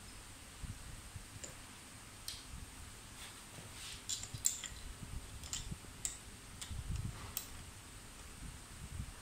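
Light, irregular metallic clicks and ticks of a hex key turning a screw in a child-seat clamp on a bike frame, with soft knocks from handling the parts.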